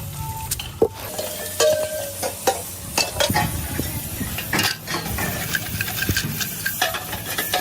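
Irregular metal clinks and clanks, some with a short ringing tone, over a steady low hum and hiss.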